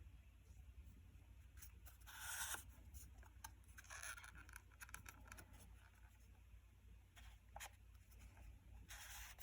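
Faint, intermittent rustling and scraping of hands handling the Nest Protect detector and its plastic case, a few short brushes over a low hum.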